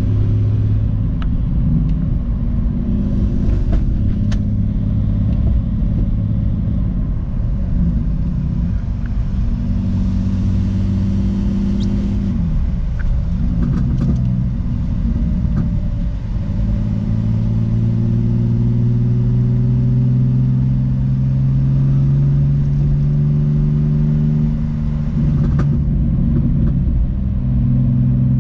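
Car engine and road noise while driving, the engine note rising slowly under acceleration and dropping back at gear changes several times. The owner judges the engine pretty good so far after a misfire repair.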